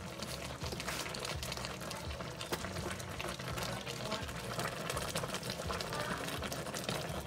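Taro, shrimp and greens stewing in coconut milk in a pan, simmering with a steady bubbling full of fine crackles.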